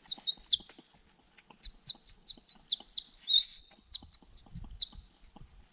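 Birdsong imitated by whistling on a strip of thin bark: a rapid run of short, high, falling chirps, about four a second, broken by one rising slur about three seconds in. It sounds a bit thin.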